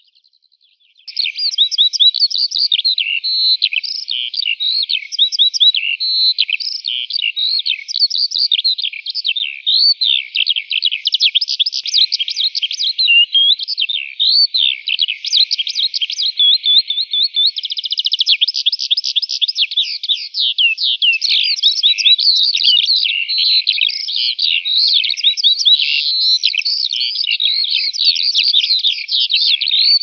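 Songbirds singing: an unbroken stream of rapid high chirps, sweeping notes and trills that starts about a second in after a brief gap.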